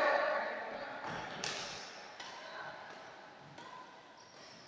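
Voices calling out, then sharp clicks of badminton rackets hitting a shuttlecock during a rally, about three hits spaced a second or so apart, in a large indoor hall.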